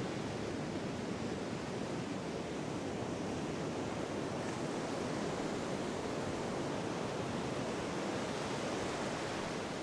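Steady, even rush of ocean surf, with no distinct wave breaks standing out.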